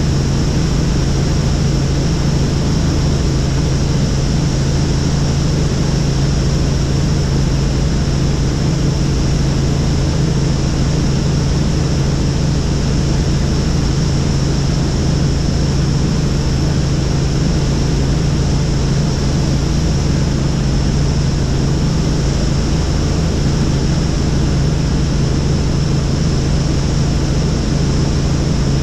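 Helicopter in steady flight: a constant loud drone of rotor and engine, with a steady high whine above it.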